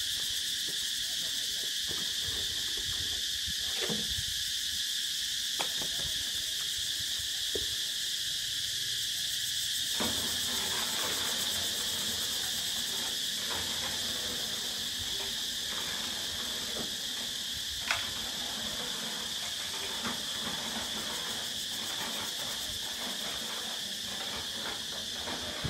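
Steady high-pitched drone of insects, with a few scattered sharp knocks, the loudest about eighteen seconds in.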